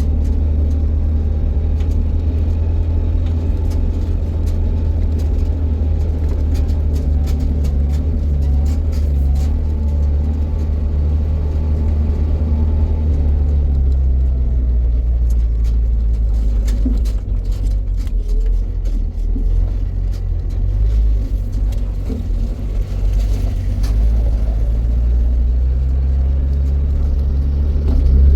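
Motor vehicle running with a steady low engine drone, as when driving. The engine note eases and drops about halfway through, then picks up again near the end.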